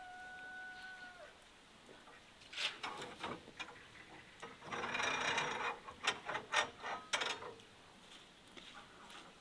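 A rooster's crow ends about a second in. Then come a run of sharp clicks and knocks, with a short rattle in the middle, as a wooden smokehouse door and the chicken legs hanging inside are handled.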